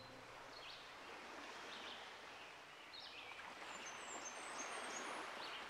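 Faint beach ambience: a soft, even wash of surf with small birds chirping now and then, the short high chirps clustered about four seconds in.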